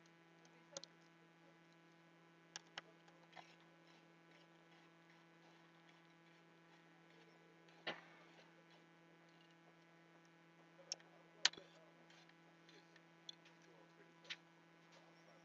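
Light, scattered clicks and taps of a metal heatsink and screwdriver being handled and set against a computer logic board, about nine in all, the sharpest about eight and eleven and a half seconds in, over a faint steady electrical hum.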